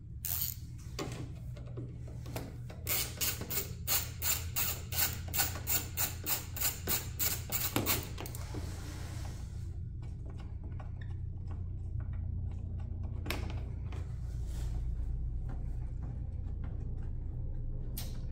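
A hand hex driver working the small bolts on a motorcycle's plastic side panels: a run of quick, even clicks, about three or four a second, lasting about five seconds, followed by a brief scrape of plastic bodywork and a few light knocks.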